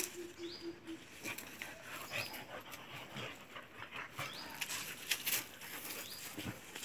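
Two dogs play-fighting: panting and short dog vocalizations over scuffling of paws on dry leaves and dirt.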